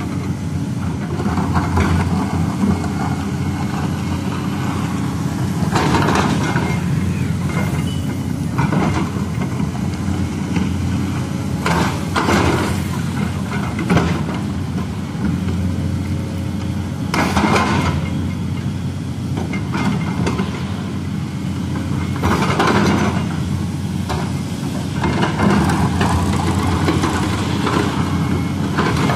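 A tracked hydraulic excavator's diesel engine running steadily while the machine digs and scrapes soil, its load swelling briefly every five or six seconds as the arm and bucket work.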